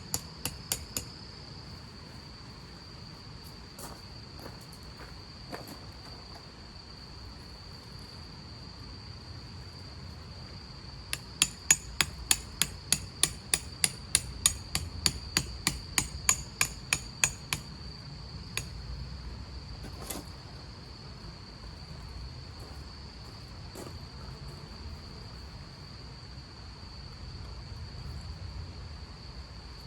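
Hammer blows ringing on metal: a few near the start, then a quick even run of about three strikes a second for some six seconds around the middle, with scattered single knocks after.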